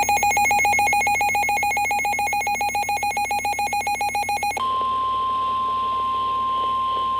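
Emergency alert tones: a rapid warbling, ring-like tone pulsing about ten times a second, which switches sharply about four and a half seconds in to a single steady alert tone near 1 kHz. The tones lead into a broadcast tornado warning.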